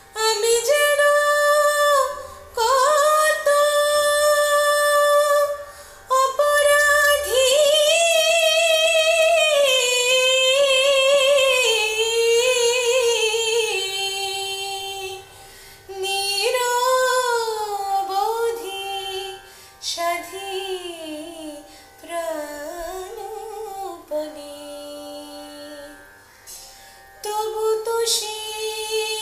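A woman singing solo in an old Bengali tappa song in raga Sindhu Bhairavi. She holds long notes decorated with fast wavering ornaments and quick turns of pitch, with short breaths between phrases.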